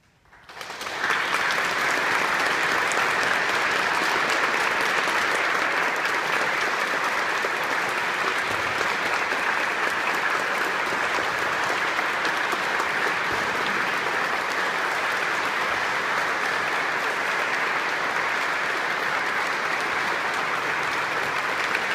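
Audience applause in a large church. It breaks out about half a second in, swells within a second, then carries on as steady clapping.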